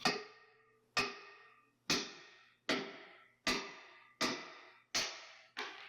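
Hammer striking steel eight times, about one blow a second and slightly quickening, each blow ringing briefly.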